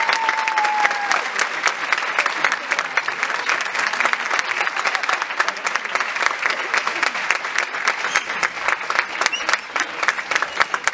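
Audience applauding with dense, steady clapping. A held high note dies away about a second in.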